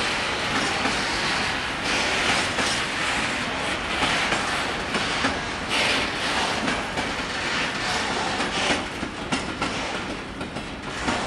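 Container freight wagons rolling past, their wheels clicking rhythmically over the rail joints over a steady rumble of rolling noise; it grows a little fainter near the end.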